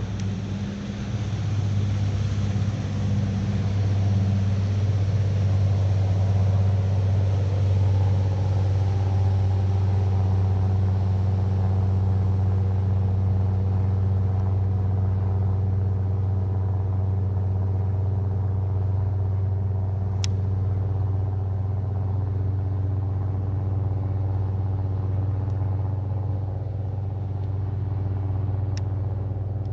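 A motor running steadily with a strong low hum, its pitch shifting slightly partway through; two short clicks, one about two-thirds in and one near the end.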